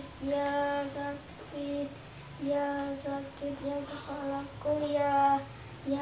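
A child's voice singing short, held notes, nearly all on one pitch, in a steady rhythm.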